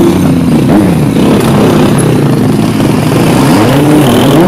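Motorcycle engines revving, their pitch rising and falling several times, loud and close.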